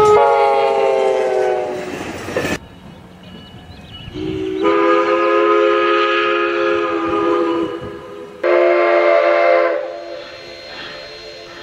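Diesel passenger locomotive's multi-note air horn. The first blast drops in pitch as the train passes and cuts off abruptly about two and a half seconds in. After a short gap come a long steady blast and then a shorter one, with the horn tones lingering faintly near the end.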